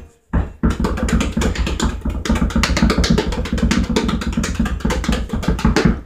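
Basketball dribbled fast and low on a carpeted floor: a quick, even run of bounces, several a second, starting about half a second in.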